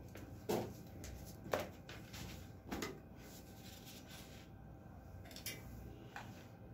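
A few short, soft knocks and rustles of handling, three of them clearer in the first three seconds and fainter ones later, as the light box's power cable is carried over and plugged in.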